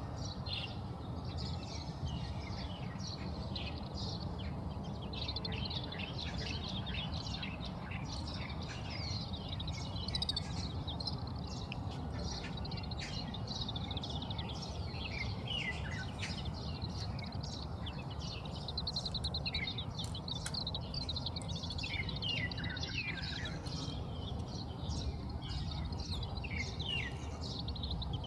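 Oriental greenfinches twittering: a run of rapid chirps and buzzy trills, some notes falling in pitch, over a steady low background rumble.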